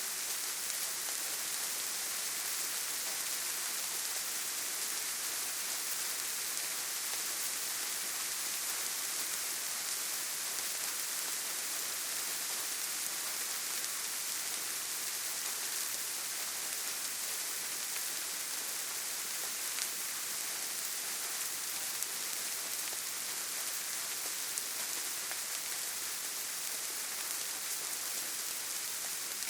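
Steady rain falling, an even hiss with no let-up, with a few single drops standing out now and then.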